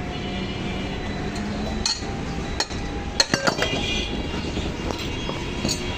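A steady machine hum, with a few sharp metallic clinks and taps between about two and three and a half seconds in.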